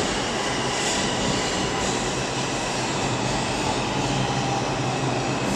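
New York City subway train moving along the far track of the station: steady noise of the cars running on the rails.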